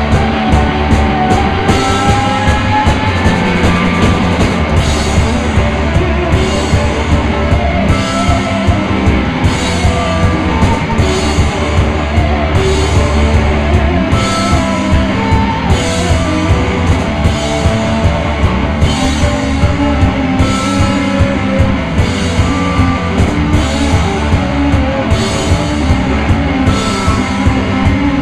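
Live rock band playing: electric guitars over a drum kit, with cymbals marking a steady beat.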